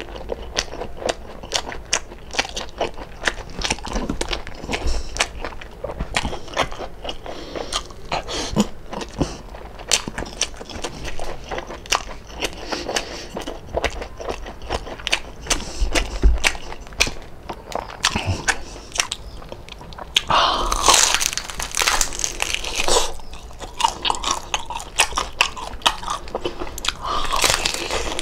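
Close-up chewing and crunching of crispy deep-fried pork belly (lechon kawali): a steady run of sharp crackly crunches between bites. Louder, denser stretches come about three-quarters of the way through and again near the end.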